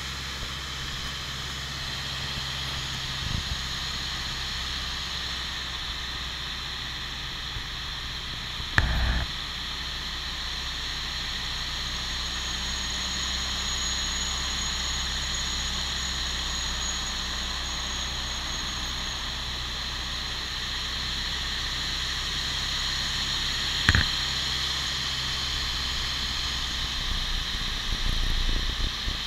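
Steady drone of a light aircraft's engine and propeller with a constant rush of air, heard from inside the closed cockpit. Two short knocks come through, one about a third of the way in and a louder one near the end, followed by some rustling close to the microphone.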